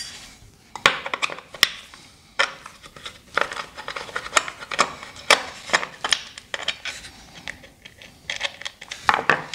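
Irregular small metal clicks and taps as washers and screws are handled on a cooker socket's brass terminal block and a screwdriver works a terminal screw.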